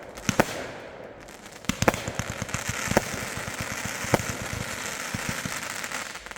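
Consumer fireworks going off: a few sharp bangs, then a dense run of crackling pops from about two seconds in, broken by louder reports, that dies away near the end.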